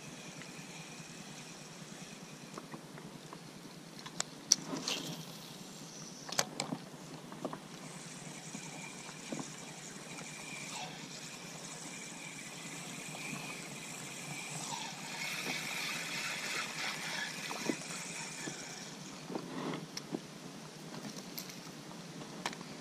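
A spinning reel cranked to retrieve a lure, a steady whirring that swells for several seconds in the second half, with a few sharp clicks and taps from the tackle.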